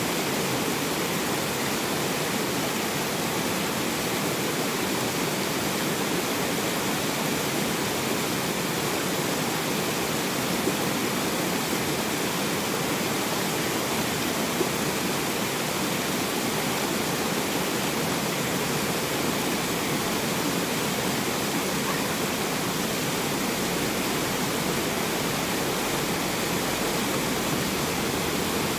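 River water rushing steadily over rocks through a small cascade, an even, unbroken rush.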